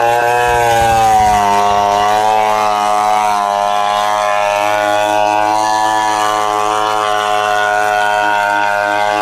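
Stihl 070 two-stroke chainsaw running loud and steady at high revs. Its pitch dips slightly about a second in, then holds with a slight waver.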